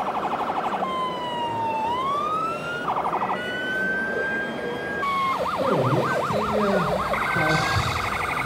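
Electronic siren from a scale RC fire truck's sound module, changing modes: first a fast yelp, then a slow wail that falls and rises again, then a rapid warble and fast pulsing near the end.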